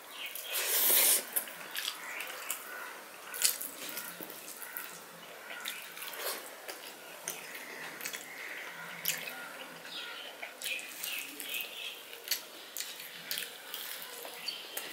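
Eating by hand: fingers mixing rice with curry on a plate, with wet squelching and chewing sounds as a stream of small wet clicks and smacks. A louder burst of noise comes about a second in.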